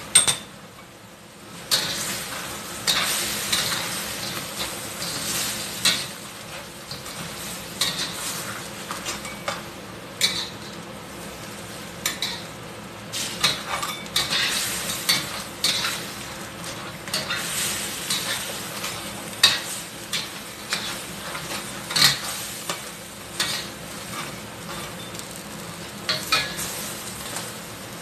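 Crab pieces sizzling in a stainless steel wok as a spatula stirs them, with repeated scrapes and clinks against the pan. The sizzle is quieter for the first second or two.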